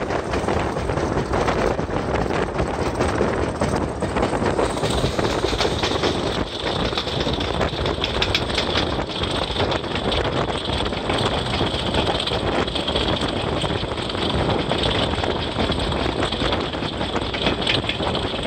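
English Electric Class 40 diesel locomotive under way, its 16-cylinder English Electric engine running with a steady rumble of engine and wheels. About five seconds in, a steady high whistle comes in over it: the turbocharger whistle that earned the class its nickname 'Whistlers'.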